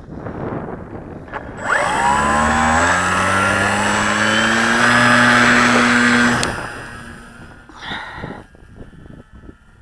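Electric motor and propeller of a foam-board RC Storch spinning up at launch, rising in pitch and settling into a loud steady buzz. It cuts off suddenly about six and a half seconds in, leaving a fainter distant buzz and a brief rush of wind near the end.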